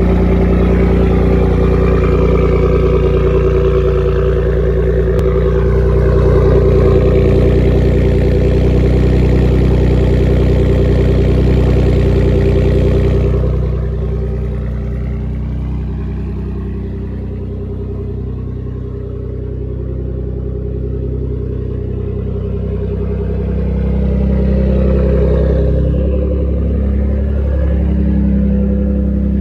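Ford F-150's 3.5 EcoBoost twin-turbo V6 running through aftermarket downpipes: a steady engine note with a high-pitched turbo whistle over it. About halfway through, the high sound cuts off abruptly and the engine goes quieter, then it swells again near the end.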